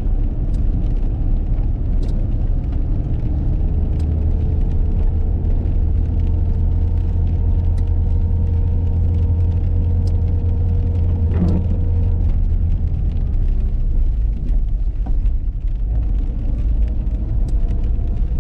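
A car driving, heard from inside the cabin: a steady low engine and road rumble, with a few scattered sharp clicks.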